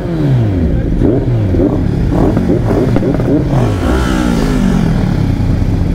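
Motorcycle engines running together and being revved, their pitch repeatedly rising and falling in overlapping sweeps.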